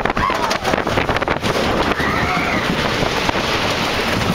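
Giant Dipper wooden roller coaster train rattling and clattering along its wooden track at speed, with wind rushing over the microphone. Riders let out two yells, one just after the start and one about two seconds in.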